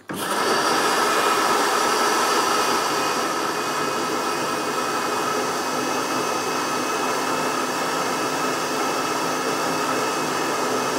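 Electric blender running steadily, puréeing cooked chicken and cream into soup. It switches on abruptly at full speed.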